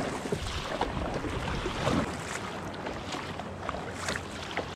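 Kayak paddle strokes in calm seawater: irregular splashing and water lapping around a plastic kayak hull, over a steady hiss of wind and water noise.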